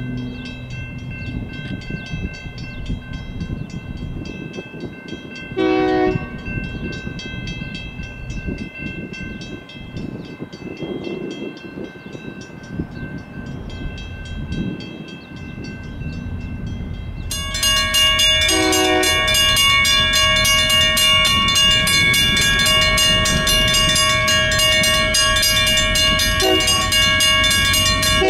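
A distant locomotive horn sounds a short blast. Later the grade crossing's mechanical bells, a WCH and a Safetran bell, start ringing rapidly and keep on as the crossing activates for the approaching train. More short horn blasts sound over the bells.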